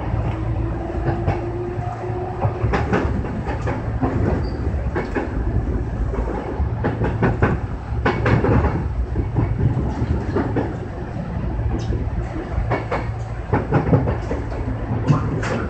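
Kintetsu 6020 series electric train running, heard from inside at the front: a steady low rumble with a rising motor whine over the first couple of seconds as it picks up speed, and the wheels clacking sharply and irregularly over rail joints and points.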